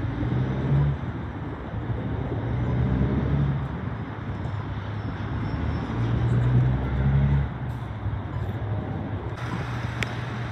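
Road traffic: cars driving past on a city street, their engines and tyres swelling a few times as vehicles go by.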